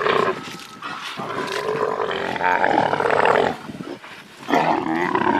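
A camel calling: a long, rough, throaty call lasting about two seconds, then a shorter one near the end.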